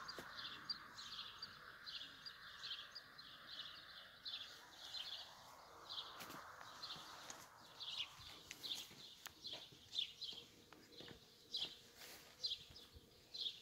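A small bird chirping over and over, short high chirps about twice a second, with a few light clicks and rustles in the second half.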